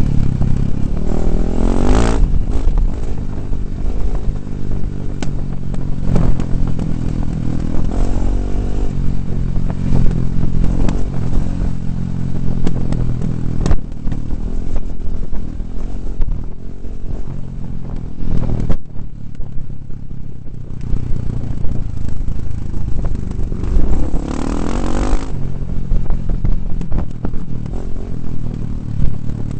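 2009 KTM 450 single-cylinder four-stroke dirt bike engine running under changing throttle, its revs rising and falling. It revs up sharply about two seconds in and again around twenty-five seconds, and eases off briefly around nineteen to twenty seconds. Clatter and knocks from the bike over the rough dirt track run through it.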